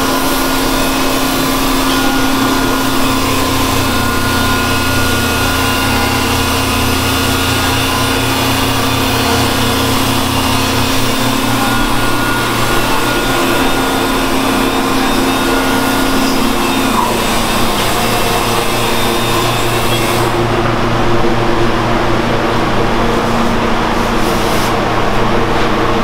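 Power sander running continuously on a Toyota FJ40 windshield frame: a steady hiss with a constant hum under it, the hiss turning duller about twenty seconds in.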